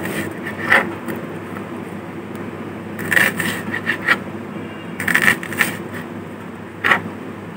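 Kitchen knife cutting a red onion on a white cutting board: irregular taps and short scrapes of the blade, some in quick runs about three and five seconds in, over a steady low hum.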